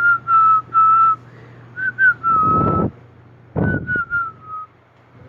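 A person whistling a tune in a run of short notes, each dipping slightly in pitch, with two brief rushes of noise partway through.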